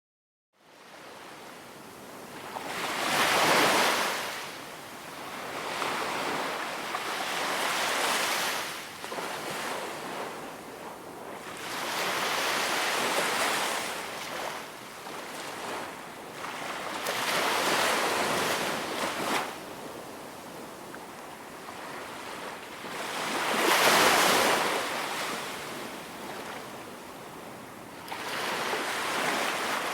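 Waves breaking and washing up on a beach, a new surge every few seconds, the biggest swells about three seconds in and again near the end. The sound starts just after a moment of silence.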